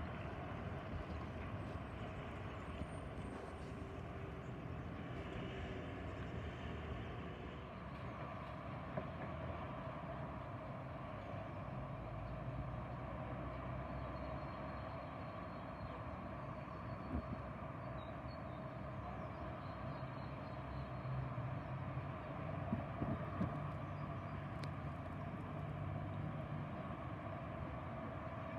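Steady hum of traffic.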